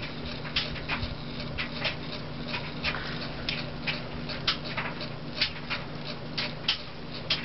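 Lasko spinner ceiling fan motor running on high with a steady, loud buzzing hum. Over it come irregular short, sharp clicks and ticks, several a second, which are the loudest sounds.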